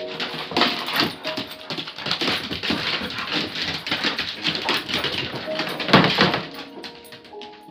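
Two dogs play-fighting: rough growling and vocalising with scuffling and claws on a wooden floor, loudest about a second in and again about six seconds in.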